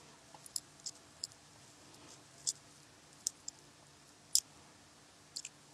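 Quiet room tone with a scattering of faint, sharp clicks at irregular intervals, the loudest about four and a half seconds in.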